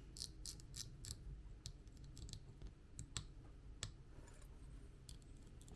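Small sharp metal clicks from a fly reel's cap being screwed back on and handled during reassembly, coming irregularly: close together in the first second, sparser after.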